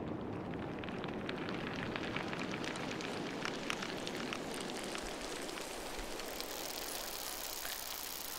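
Forest field recording: dense crackling and small clicks over a low rumbling hiss. The rumble fades about five seconds in, and a high hiss comes up near the end.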